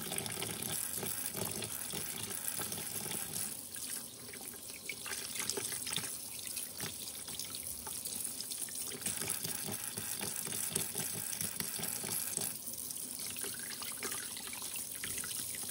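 Tap water running into a stainless-steel kitchen sink, with small splashes and clatter as wet fish are handled over a plastic colander.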